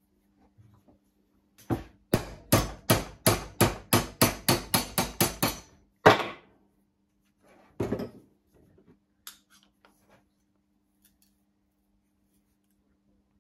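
Hand hammer striking a thin metal band on a workbench to shape it. A rapid, even run of about fifteen blows, some four a second, is followed by one loudest blow and another about two seconds later. Faint light taps come near the end.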